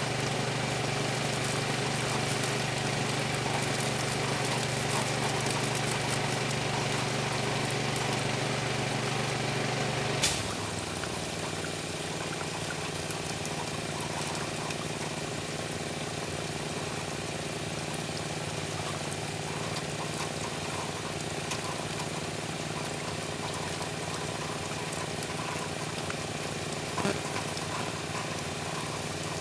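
Pressure washer's gasoline engine running steadily under a continuous hiss of water spray. About a third of the way in there is a sharp click, after which the engine note shifts slightly and the sound settles a little quieter.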